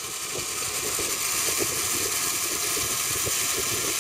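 Zipline trolley running along the steel cable at high speed, a steady whirring drone mixed with wind rushing over the microphone.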